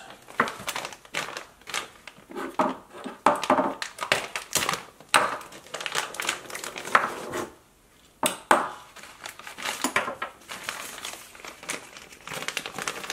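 Clear plastic parts bags crinkling and rustling in irregular bursts as they are handled and opened, with a short lull and then a sharp click about eight seconds in.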